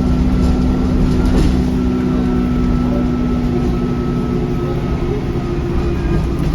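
Alexander Dennis Enviro400 double-decker bus on the move, its diesel engine running steadily with a deep rumble and a thin high turbo whine held over it.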